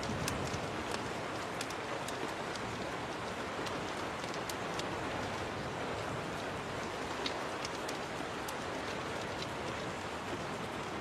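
Steady rain, an even hiss, with scattered faint sharp ticks.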